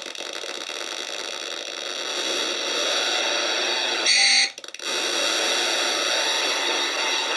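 Circuit-bent VTech Groovy Tunes toy radio putting out dense electronic glitch noise with steady tones through its small speaker. About four seconds in a brighter, louder squeal cuts in briefly, the sound drops out for a moment, and the noise comes back.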